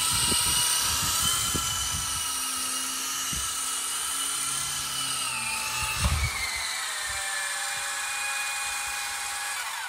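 Toy RC helicopter's small electric motors and rotors whining steadily at a high pitch as it flies. About six seconds in there is a thump, and after it the whine runs lower until it stops near the end.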